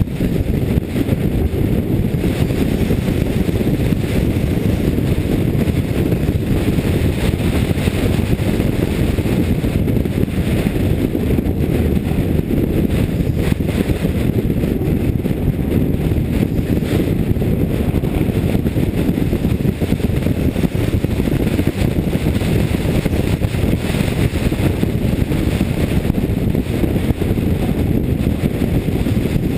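Race car at speed on track: its engine running hard under the wind noise of the onboard camera, a steady dense rumble with no sharp events. The car's gearbox is stuck in fourth gear.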